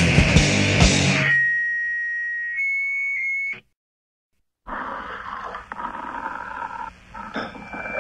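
Sludge metal band playing heavily distorted guitars, bass and drums, which stop about a second in, leaving a single held guitar feedback tone that rings for about two seconds and cuts off. After about a second of silence, a quieter, hissy recording with faint steady tones begins.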